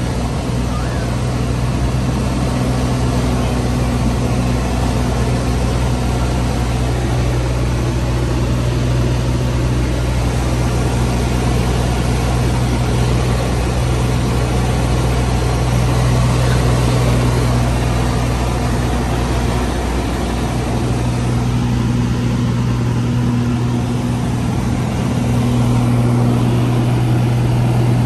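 Single-engine light aircraft's piston engine and propeller running steadily in flight, a constant low drone with the rush of air over it, heard from inside the cockpit.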